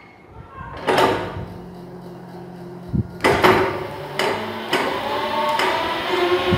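A few knocks as the throttle pedal is handled, then about three seconds in the 60V 800W brushless motor on a differential rear axle starts under throttle and spins the free wheels, running with a faint whine that rises slightly along with gear noise.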